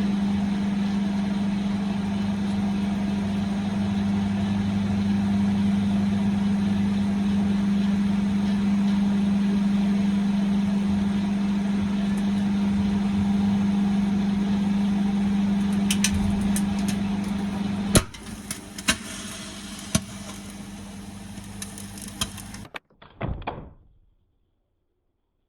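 Microwave oven running with a steady hum while heating a raw egg. Small crackles start about two seconds before a single sharp pop, after which the hum stops; softer noise and a few clicks follow before the sound cuts off suddenly.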